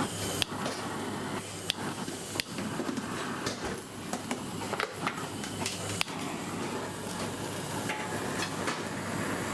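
Busy restaurant kitchen at work: a steady hum of ventilation under scattered sharp clinks and knocks of pans, dishes and utensils.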